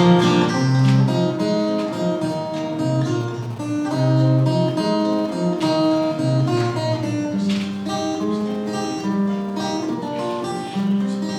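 Solo acoustic guitar playing an instrumental interlude in an author's song, chords strummed and picked with no voice.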